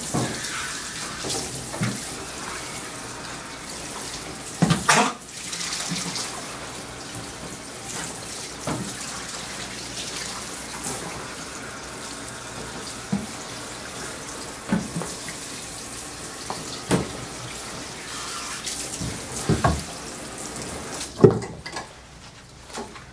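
Water spraying steadily from a hand-held hose sprayer onto a wet dog's coat in a grooming tub, with a few sharp knocks. The spray stops near the end.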